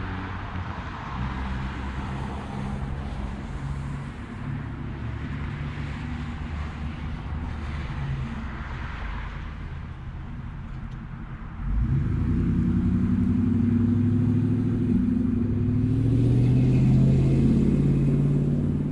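Road traffic: vehicle engines humming with tyre noise on the road. About twelve seconds in a nearer, louder engine sound comes in suddenly, its pitch rising and falling near the end.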